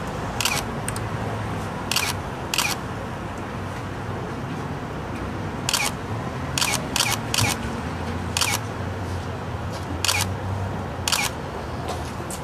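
Still-camera shutters clicking about ten times at irregular intervals, sometimes two or three in quick succession, over a steady low background hum.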